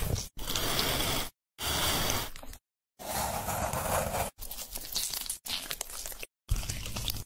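Food-preparation noises of tearing and crunching, chopped into about seven short pieces of a second or so, each cut off abruptly by a moment of dead silence.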